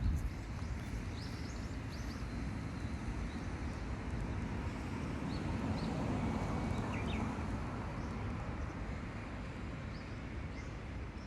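Steady low rumble of traffic, swelling as a vehicle passes about halfway through, with scattered short bird chirps over it.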